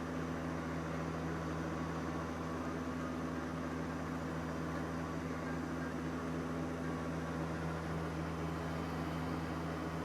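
Electric mixer running steadily, whipping cream and mascarpone that has reached soft peaks but not yet stiff ones.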